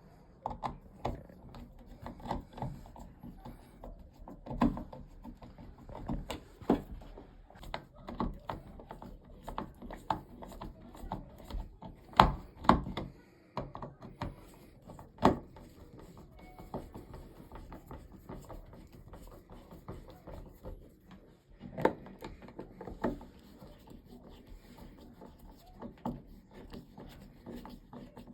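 Hands working a car's plastic dash trim around the light switch back into place: irregular clicks, knocks and rubbing, with a few sharper knocks about halfway through.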